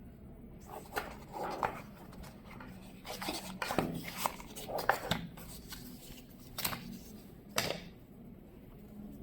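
Hands opening and handling the cardboard retail box of a pair of earbuds: scattered scrapes, rustles and sharp clicks, loudest in a cluster in the middle and with two more clicks near the end.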